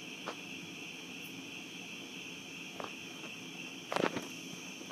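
Night insects, crickets or katydids, chirring in a steady high chorus. A few faint clicks are heard, and a short burst of louder clicks and knocks comes about four seconds in.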